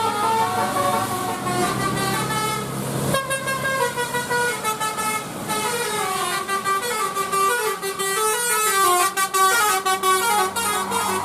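Bus telolet horn, a set of musical air horns, playing a quick tune of stepped notes, often several notes at once. A low steady hum sits under the first three seconds and then stops.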